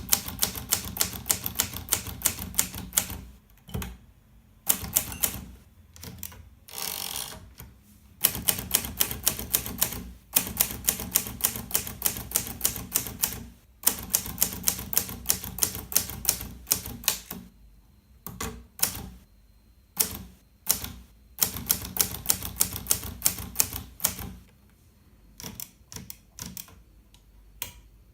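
Hermes 3000 portable typewriter being typed on: fast runs of key strikes, several a second, broken by short pauses.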